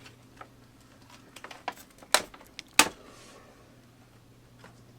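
Hard plastic parts and blister packaging being handled: a few soft clicks, then two sharp clacks about two and three seconds in, over a faint steady hum.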